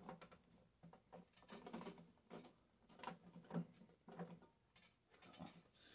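Faint, irregular clicks and taps of hands handling and working on scrap microwave parts.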